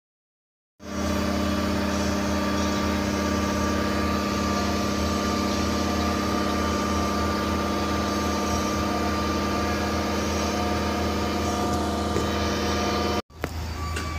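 Large engine running steadily at a constant speed, a low rumble with several steady tones over it. It cuts out briefly about 13 seconds in and comes back a little quieter.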